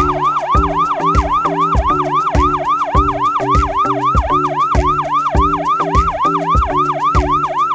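Background music added in editing: a synth tone swooping up and down about four times a second, siren-like, over a steady drum beat and bass.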